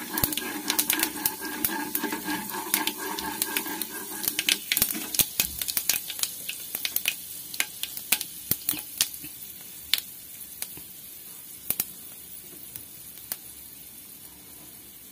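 Panch phoron seeds sizzling and popping in hot oil in a nonstick pan as they are stirred with a spatula. The sharp pops come thick at first and thin out, with a steady hum under the first four seconds or so.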